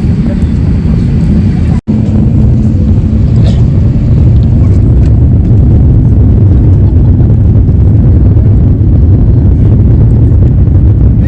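Airbus A350 cabin noise during the takeoff roll: a loud, steady low rumble of the Rolls-Royce Trent XWB engines at takeoff thrust and the wheels on the runway, growing a little stronger after a brief cut about two seconds in.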